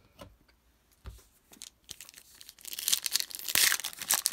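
A trading card pack's wrapper being torn open and crinkled, starting about two and a half seconds in after a few soft handling taps.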